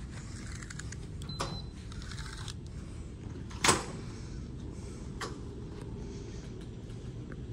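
Badge-reader access at a wooden door: a short high beep about a second and a half in, then a sharp click near the middle, the loudest sound, and a fainter click as the door swings open, over a steady low hum.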